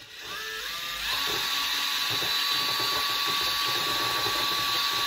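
Cordless drill with a small diamond bit grinding into a lava rock held in water. The motor whines up in pitch over the first second, then holds a steady high whine over a gritty grinding noise.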